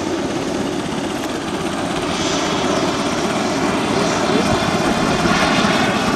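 Radio-controlled model airplane's motor and propeller running steadily as the plane comes in to land.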